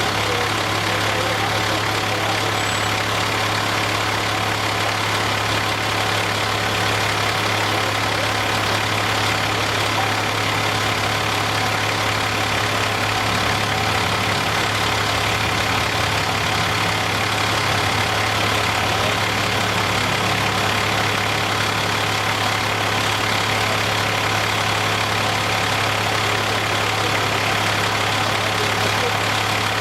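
Large vehicle's engine idling steadily, a constant low drone that does not change.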